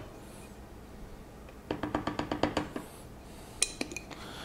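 Cinnamon being shaken out of a spice container: a quick run of clicking taps, about ten a second for about a second, then a sharp click near the end.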